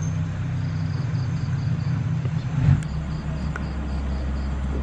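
A steady low motor hum that shifts lower after a knock about three seconds in, with crickets chirping in a fast, even pulse above it.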